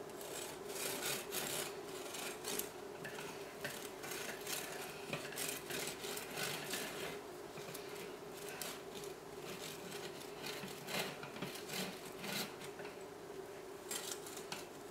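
Serrated knife sawing back and forth through a baked cake, cutting off its domed top: a faint, irregular rasping of the blade's teeth through the crust and crumb, stroke after stroke, over a steady low hum.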